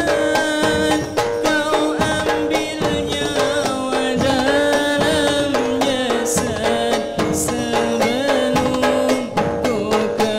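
Hadrah ensemble playing: hand-struck frame drums (rebana) and large bass drums beating a rhythm under a man singing a wavering, drawn-out melody through a microphone.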